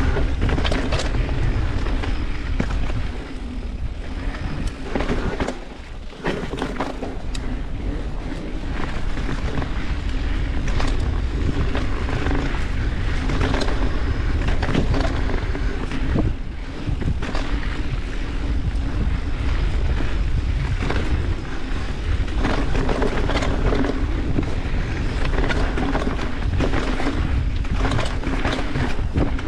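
Mountain bike riding down rocky singletrack: wind buffeting the microphone over tyres rolling on dirt and rock, with frequent rattles and knocks from the bike as it goes over bumps.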